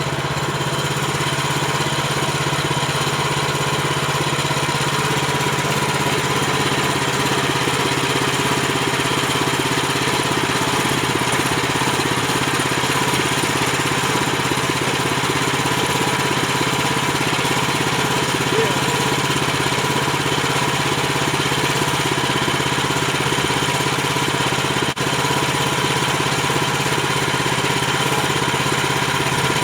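Woodland Mills HM130MAX portable band sawmill's small gas engine running steadily at a constant pace, with a brief dip about 25 seconds in.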